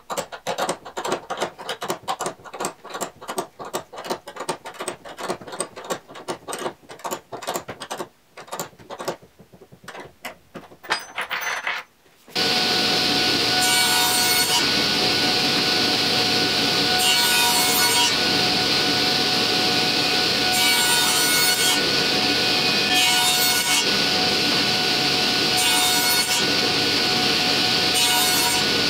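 Rapid back-and-forth hand-saw strokes, about three a second, for roughly twelve seconds. Then a table saw comes on at full speed with a steady whine, its blade ripping through wood in short cuts every three or four seconds, about six times.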